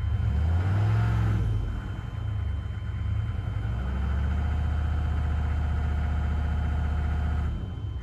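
1996 GMC K3500's 6.5-litre diesel V8 running, revved briefly about a second in, then held at a raised steady speed from about halfway before dropping back near the end, heard from inside the cab. With a different remote-mounted pump module hooked up, it runs a lot smoother.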